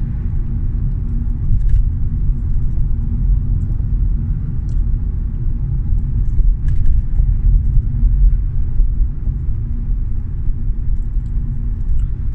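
Steady low rumble of a car driving along at about 30 mph on cruise control, heard from inside the cabin: engine and tyre noise.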